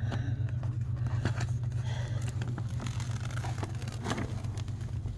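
Crinkling and rustling of a diamond painting canvas and its plastic film being handled, over a steady low hum.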